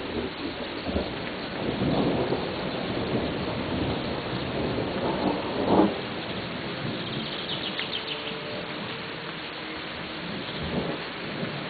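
Thunder over steady rain: a rolling rumble swells about two seconds in and ends in a sharp clap near six seconds, with a smaller rumble near the end.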